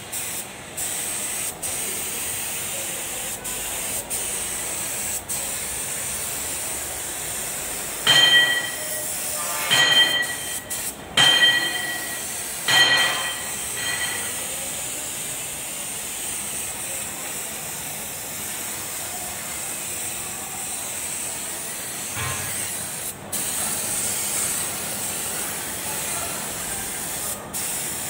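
Compressed-air paint spray gun hissing steadily while spray-painting. Four short, loud, shrill tones come about eight to thirteen seconds in.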